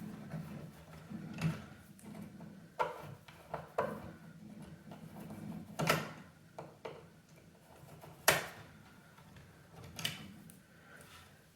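Handling noises at the lock of a wooden china cabinet door as its screws are being worked loose: about six separate sharp clicks and knocks, the loudest about eight seconds in.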